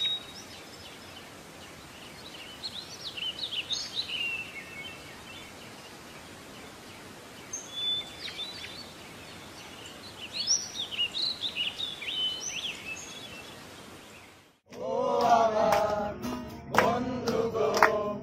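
Birds chirping in scattered bursts over a steady background hiss. Near the end this cuts off suddenly and a song with singing and percussion starts.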